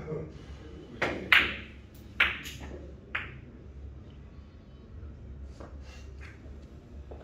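Billiard cue striking the cue ball with a soft knock, followed by about five sharp, ringing clicks of billiard balls colliding over the next two seconds, the loudest about a second and a half in.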